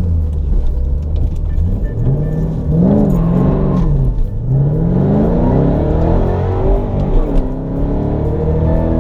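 Ford Shelby GT500's V8 accelerating under load. Its pitch climbs through the revs and drops back at each gear change, several times over.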